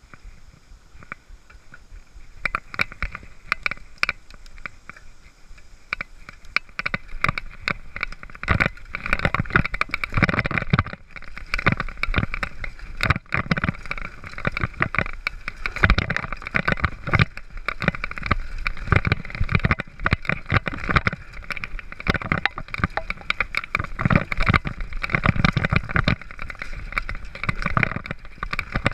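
Mountain bike riding down a rough dirt trail: tyre noise and a constant clatter of rattles and knocks as it goes over bumps, louder from about eight seconds in.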